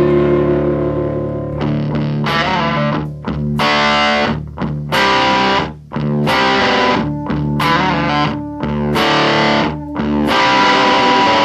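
Rock music with distorted electric guitar. A held chord gives way about a second and a half in to short, choppy strummed stabs with brief gaps, and held chords return near the end.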